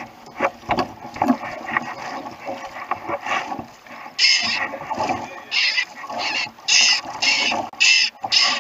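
A seabird tangled in braided fishing line squawking over and over, about two calls a second from about halfway in, after a few seconds of clicks and rustling as it is handled.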